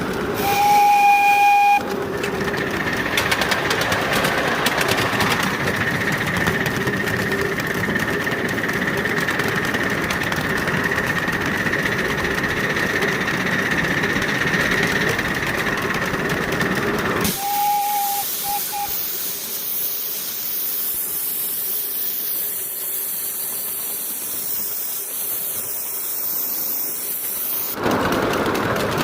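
Miniature 5-inch gauge live-steam locomotive sounding its whistle in a short blast, followed by a steady hiss of steam. A little past halfway the sound changes abruptly and the whistle gives two quick toots, with a thinner, higher hiss after them.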